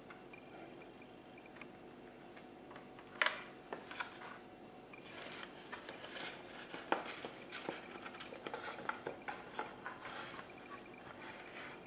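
Foam RC model airplane parts handled by hand: scattered light knocks and rubbing. There is a sharper knock about three seconds in, and the knocks come thicker in the second half.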